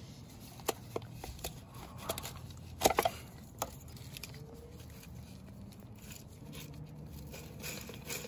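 Scattered light clicks and taps of transmission parts being handled with rubber-gloved hands around the throwout bearing and input shaft, the loudest pair of knocks about three seconds in.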